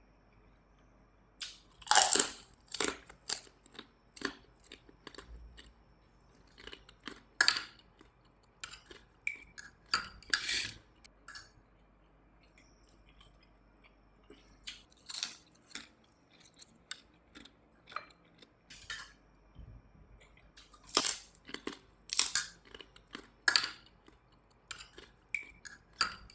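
Close-up chewing and crunching of salted sardines, in irregular crunchy bursts with short pauses between mouthfuls.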